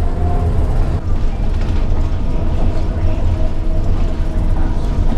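City bus in motion, heard from inside: a steady low engine and road rumble.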